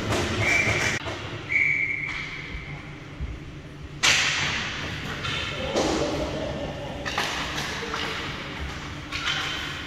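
Two short blasts of a referee's whistle in quick succession, then a sudden loud bang about four seconds in amid rink noise.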